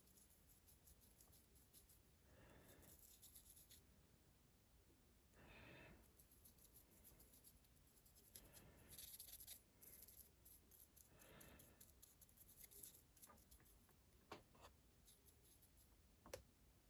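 Faint strokes of a paint brush on a small diecast metal baseplate, one soft brushing sweep every few seconds, with a few tiny clicks.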